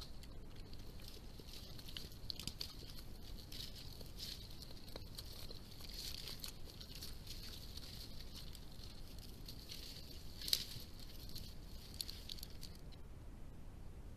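Badger rustling and crackling through strawberry plants close to a trail camera: an irregular run of crisp rustles, with one sharper crack about ten and a half seconds in.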